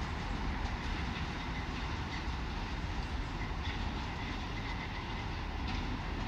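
Freight train of covered hopper wagons, run as a load-test train on newly built track, rolling away over the rails: a steady low rumble of wheels with a few faint clicks.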